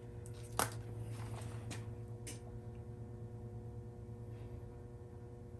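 A few light clicks and taps of small metal parts being handled, the sharpest about half a second in, over a steady low hum.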